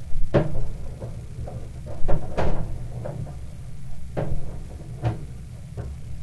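Sewer inspection camera's push cable being pulled back out of the line: about five sharp knocks and clunks over a steady low hum.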